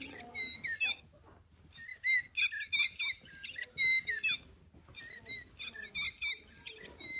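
Plush bird toy's built-in sound box playing high, bird-like chirps and squeaks in three bursts with short pauses between them.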